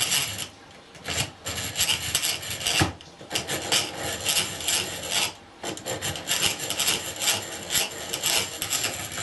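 Handsaw cutting through scrap wood, taking the ends off a lap-jointed frame: quick back-and-forth strokes in runs, broken by short pauses about every two to three seconds.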